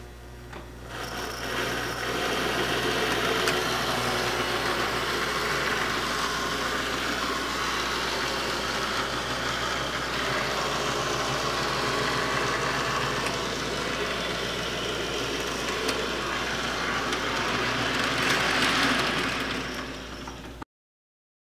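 American Flyer 1950 GM diesel #370 model locomotive running under load, pulling heavy metal searchlight cars: a steady whirr of its electric motor and gears with wheels clattering on the metal track, over a steady low hum. It builds up over the first couple of seconds, is loudest near the end, then fades and cuts off.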